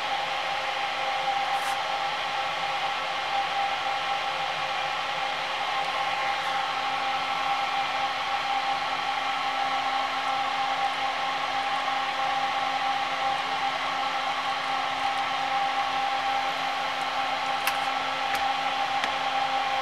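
Fog machine fan running steadily: an even whir with a constant tone.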